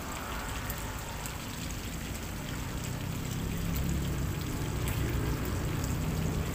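Pork belly frying in hot oil in a pan: a steady sizzle with fine crackles as chopped garlic is added. A low hum comes up underneath about halfway through.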